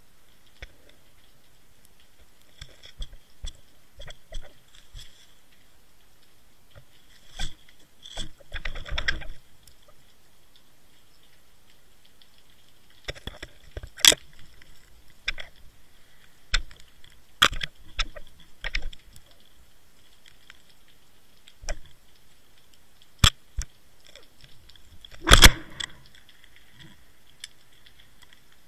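Irregular underwater clicks, knocks and scrapes, a few at a time with the loudest knock near the end, as a Water Wolf inline camera rig on a fishing line bumps and drags over a pebble seabed, with a faint steady high whine under them.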